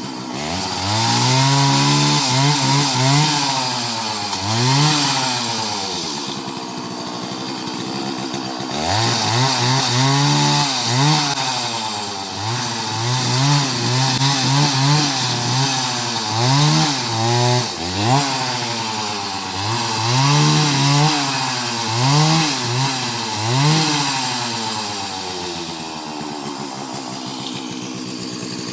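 Chainsaw engine revving hard and dropping back again and again while cutting a coconut, in three spells of revving with lower, steadier running between them.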